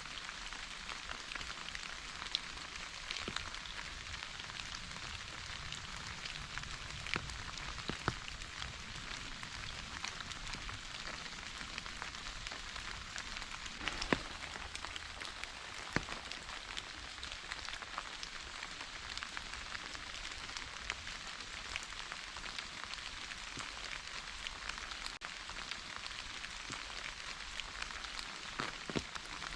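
Steady rain falling, with the hiss of the downpour and scattered sharper drops tapping here and there, a few louder ones standing out.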